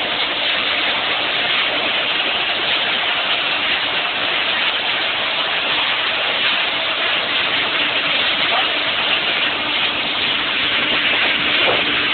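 Speedboat under way: a steady rush of water and wind against the hull, with the boat engine's hum running underneath.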